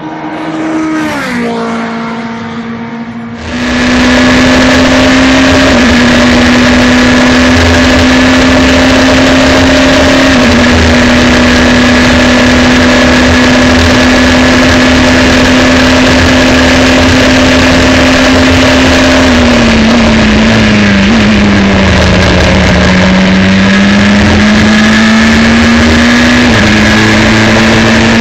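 A Formula 3 car passes at speed, its engine note falling in pitch as it goes by. About three seconds in the sound switches to onboard: the Dallara F302's four-cylinder engine running loud and hard at high speed. Its pitch steps with gear changes and sags about two-thirds through as the car slows and downshifts, then climbs again.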